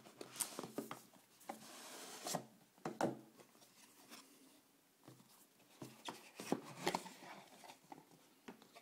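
Cardboard packaging being opened by hand: a rubbing, rasping slide as the inner box is pulled out of its sleeve, with scattered taps and knocks of cardboard being handled.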